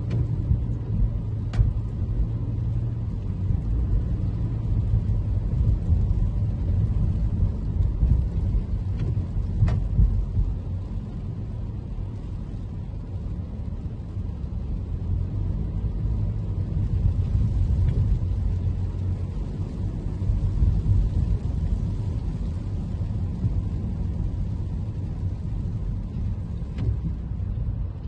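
Toyota Camry driving: a steady low road and engine rumble that swells and eases gently, with a couple of faint clicks.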